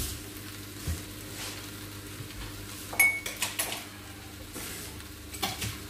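Kitchen crockery and cutlery clinking as they are handled: one sharp clink with a brief ring about three seconds in, a few lighter knocks after it, and two more near the end, over a low steady hum.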